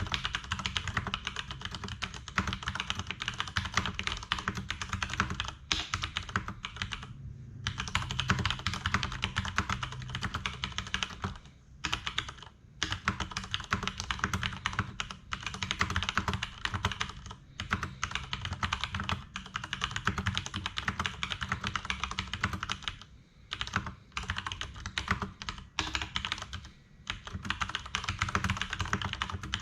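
Fast continuous typing on a Leopold FC750R PD mechanical keyboard with tactile Cherry MX Brown switches: a dense run of keystroke clicks, broken by short pauses about 7 and 12 seconds in and a few more near the end.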